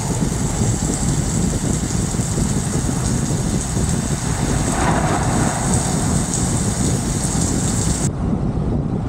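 Steady hiss of rain over a low rumble. The high part of the hiss cuts off suddenly about a second before the end.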